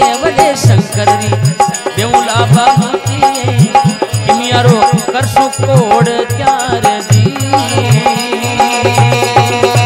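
Instrumental interlude of Rajasthani folk devotional music: a hand drum beating steadily with sliding bass strokes, a repeating melody line, and a shaking rattle.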